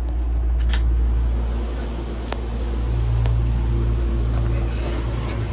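Steady low rumble and hum inside a Meitetsu μSKY limited express train car, with a few faint clicks.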